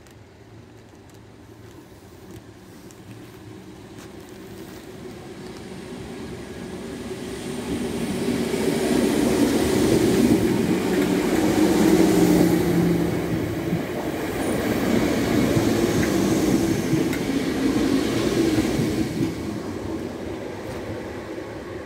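Yellow third-rail electric passenger train approaching and running past at close range over a level crossing, then moving away. The rumble builds for about ten seconds to its loudest as the train passes, then fades.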